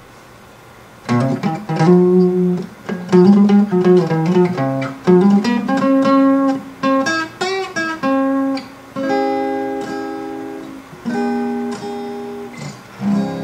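Acoustic guitar music: plucked and strummed notes begin about a second in, giving way to longer ringing chords in the second half.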